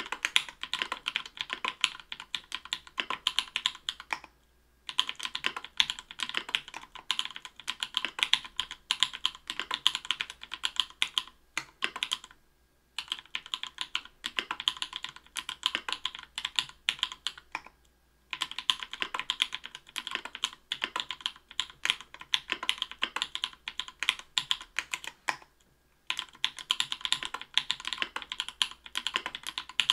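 Typing on a mechanical keyboard (Octagon v3, aluminium plate, Cherry-profile PBT keycaps) with lubed Everglide Bamboo Leaf Green 62g tactile switches: rapid keystroke clacks in runs of several seconds, with brief pauses about four times.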